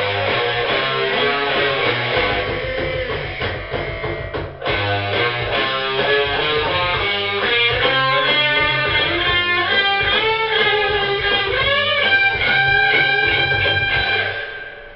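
Rock music on electric guitar, a lead line with notes bending up and down over low bass notes, stopping just before the end.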